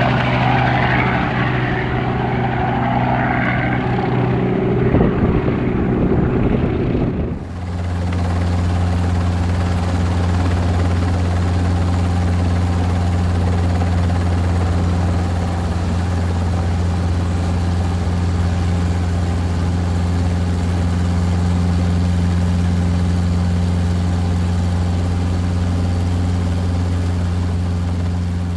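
A helicopter taking off and flying away, heard from the ground as a pitched rotor and engine sound. About seven seconds in it cuts abruptly to the steady low drone of a helicopter heard from aboard in flight.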